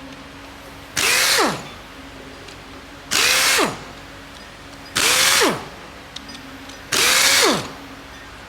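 Handheld power tool run in four short bursts about two seconds apart. The motor spins up quickly each time and winds down in pitch after release.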